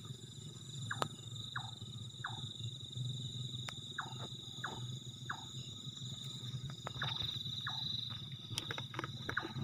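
Night crickets trilling in one steady, shrill high tone. Over them come short falling chirps, two or three at a time, and a few faint clicks.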